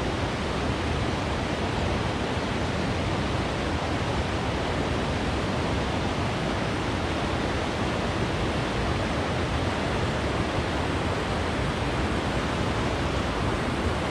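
Steady, even rushing noise at a constant level, with no distinct events.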